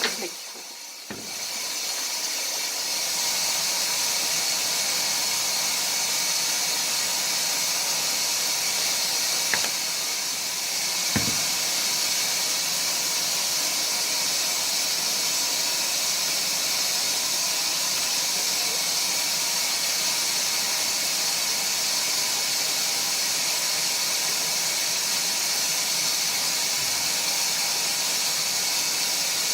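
Water hissing steadily into a washing machine as it fills, building up over the first few seconds, with a couple of faint clicks in the middle.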